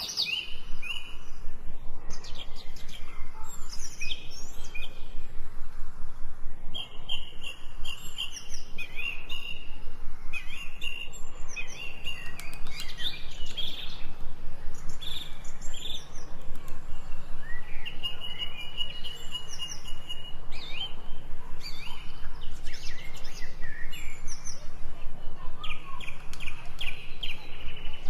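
Several birds chirping and singing, their short calls overlapping, with a quick run of repeated chirps near the end.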